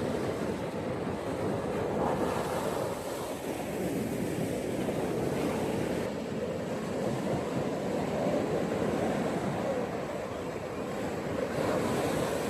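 Gentle ocean waves washing on a beach, a continuous surf wash that swells and eases slowly.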